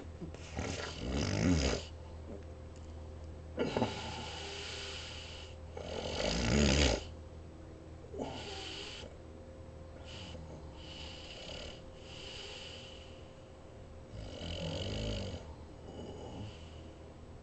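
Snoring: a sleeper draws a deep snore every two to three seconds, some much louder than others.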